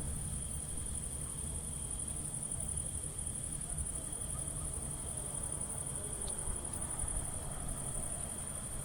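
Crickets chirping in a steady, high, continuous trill over a low, even background rumble.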